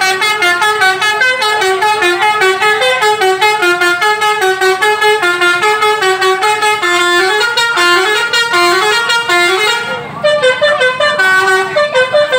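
Indonesian tourist bus's 'telolet' musical horn (a Basuri multi-tone air horn) playing a fast melody of short stepping notes, with a brief break a couple of seconds before the end before the tune starts again.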